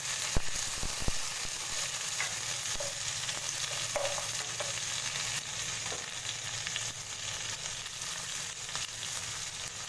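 Cut okra, shallots, tomato and dried red chillies sizzling in hot oil in a non-stick pot, stirred with a spatula, in a steady hiss. Two sharp knocks in the first second or so.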